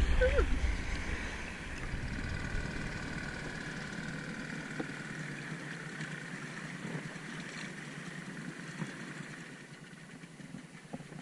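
Small outboard motor on an inflatable dinghy running steadily, then dying away near the end as the dinghy slows.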